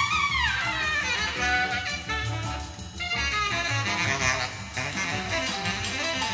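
Jazz quartet recording played back through Estelon XA loudspeakers. A saxophone bends and glides through a fast line near the start, then holds notes over bass and drums.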